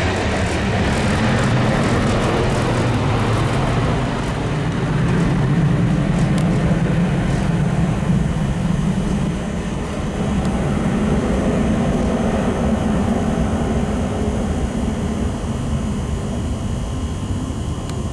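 Boeing 767-300ER airliner's jet engines running loud and steady, the sound gradually losing its high hiss over the last several seconds as it fades.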